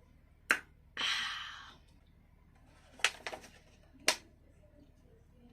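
Sharp clicks and a short crunching rustle that fades over about a second, the sounds of handling takeaway food and its container while eating. A cluster of clicks follows near the middle, and one more sharp click comes about four seconds in.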